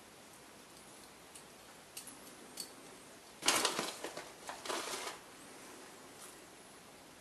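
Plastic bag of calcium chloride flakes crinkling and rustling for about a second and a half, about halfway through, as a measuring spoon is dipped in for a scoop. A few light ticks come before it.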